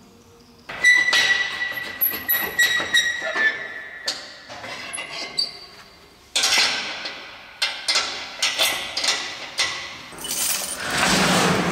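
A padlock and the steel latch of a metal enclosure gate being unlocked and worked: a run of sharp metallic clinks and rattles, some with a brief ringing tone, starting about a second in. Near the end comes a longer rattling scrape.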